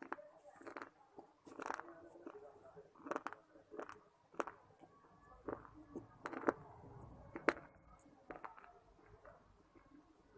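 Close-miked biting and chewing of crunchy stone-like blocks: soft crunches at irregular spacing, roughly one a second, over quiet mouth and chewing noise.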